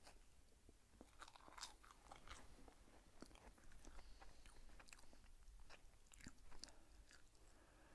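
Faint crunching and chewing of a bite of toast, a scatter of small crackly clicks. The sound is otherwise near silence.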